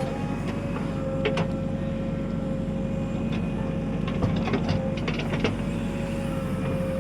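JCB 3DX backhoe loader's diesel engine running steadily, with a steady whine over it. Several short knocks and clanks come about a second in and again between four and five and a half seconds in.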